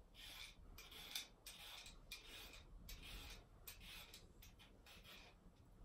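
Faint repeated scraping of a peeler down a carrot, about two to three strokes a second, as the skin is peeled off.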